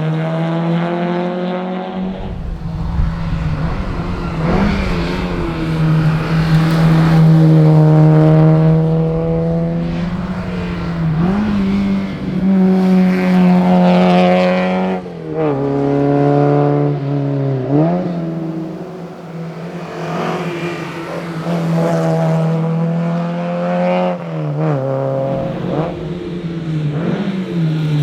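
Alfa Romeo GTV 2000's twin-cam four-cylinder engine driven hard, its pitch climbing under acceleration then dropping sharply at each gear change or lift, several times over, with low road rumble underneath.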